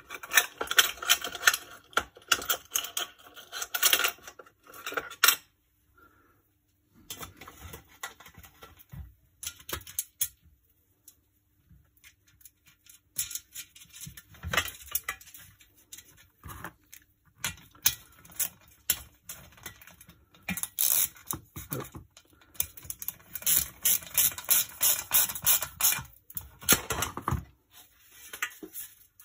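Small metal hardware and a steel bicycle fender handled on a workbench while a washer and tail light are fitted: quick runs of clicks, taps and rattles, with a short pause a few seconds in and a second dense run near the end.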